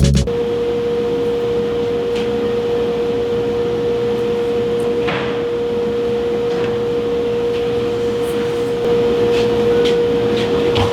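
Steady mechanical hum with a constant high tone, like a running motor or fan, with a few faint clicks and knocks.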